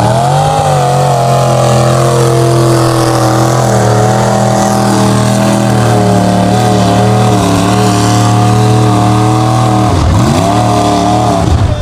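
Lifted Ford Bronco's engine revving hard under load as it drives through a mud bog pit. The revs climb at the start and hold high, then drop sharply about ten seconds in and pick up again.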